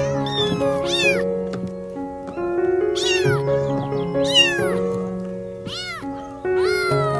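Kitten meowing about half a dozen times, short high calls that each rise and then fall in pitch, over background music of sustained notes.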